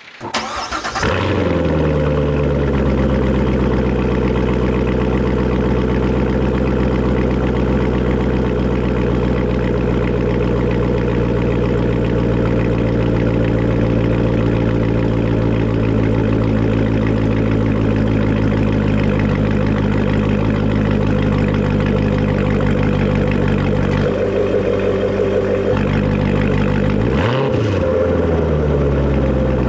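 2017 Chevrolet Corvette Grand Sport's 6.2-litre LT1 V8 starting up, flaring and settling into a steady idle, heard through its performance exhaust with the electronic exhaust valves held open in Sport mode. Near the end the throttle is blipped once, the pitch rising and falling quickly before it drops back to idle.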